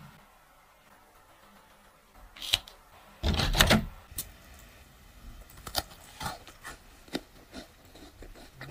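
A crisp piped cookie bitten with a loud crunch about three seconds in, followed by scattered smaller crunching clicks.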